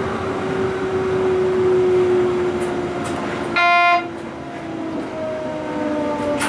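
Class 425 electric multiple unit's traction drive whining, its tones falling slowly in pitch as the train slows toward a station platform. A bit past halfway there is one short, loud horn toot lasting under half a second.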